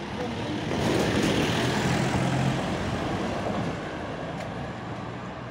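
A jeep drives past close by. Its engine and tyre noise swell about a second in, then fade slowly as it moves off down the street.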